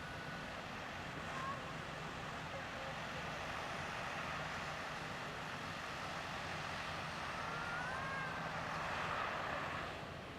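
Heavy construction machinery running steadily on a work site: a diesel engine drone under a broad rushing noise, with a few faint short whistling glides, one about a second and a half in and a couple more about eight seconds in.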